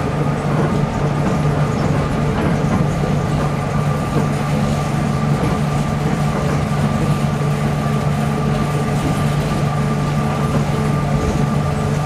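Onboard running noise of a Tokyo Metropolitan Bureau of Transportation 300-series rubber-tyred automated guideway train moving between stations: a steady hum and rumble with a faint steady whine at an even pitch.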